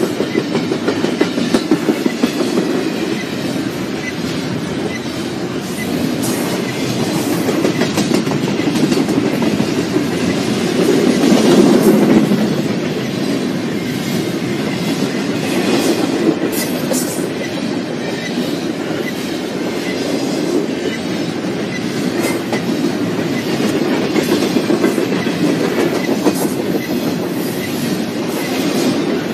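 Double-stack container freight train rolling past: a steady rumble of steel wheels on rail, with clicking as the well cars' wheels cross rail joints. The rumble swells briefly a little before halfway.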